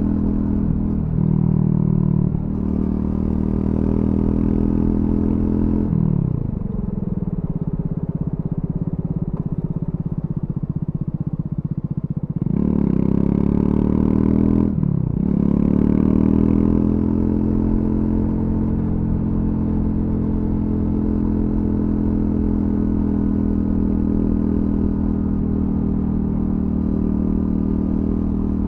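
Triumph Scrambler 400X's single-cylinder engine through its stock exhaust, heard from the rider's position while riding. The engine pulls steadily, eases off and drops in pitch about six seconds in, revs up sharply near the middle, dips briefly for a quick gear change and climbs again, then settles into a steady cruising note.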